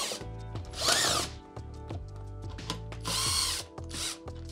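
Cordless power driver whirring in several short bursts, the loudest about a second in and another just after three seconds, as it runs out the fasteners on a motorcycle's plastic bodywork panels.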